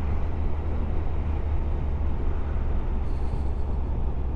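Motorcycle riding at a steady speed: a continuous low rumble of engine and wind noise with no change in pace.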